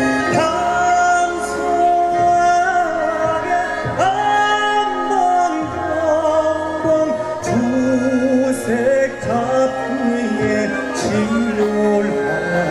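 Male Korean traditional singer (sorikkun) singing held, wavering notes, accompanied by a Korean traditional gugak orchestra.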